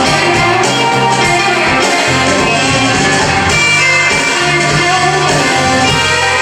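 Live blues-rock band playing, with electric guitar over drums and held bass notes.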